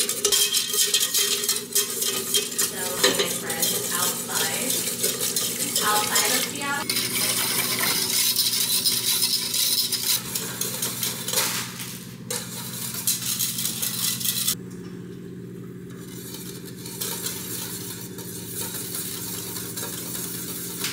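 Wire whisk beating and scraping in a stainless-steel saucepan, a fast run of metal-on-metal clinks, as a roux and milk are whisked into a béchamel. About two-thirds of the way through, the whisking stops and the sound drops to a quieter, steady background.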